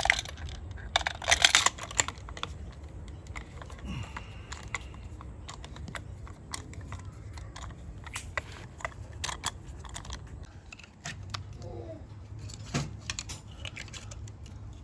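Irregular small metallic clicks and clinks of hand tools and parts being handled while spark plugs are swapped in the engine, busiest about one to two seconds in.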